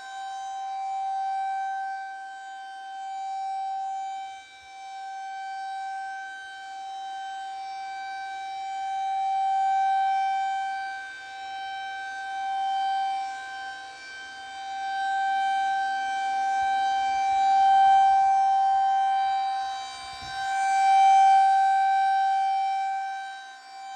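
Federal Signal 2001-SRNB rotating single-tone tornado siren sounding a steady tone at full speed during a test, its loudness swelling and fading every few seconds as the head turns.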